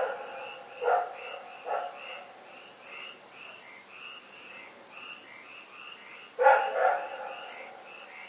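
A dog barking at night: one bark about a second in and another shortly after, then a pause of several seconds and two barks in quick succession. A steady run of short, high chirping calls repeats throughout in the background.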